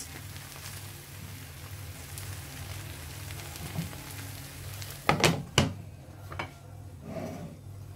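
Sliced-potato pie sizzling as it fries in oil in a nonstick frying pan. About five seconds in there are two sharp clinks as a glass lid is set on the pan, and after that the sizzle is muffled.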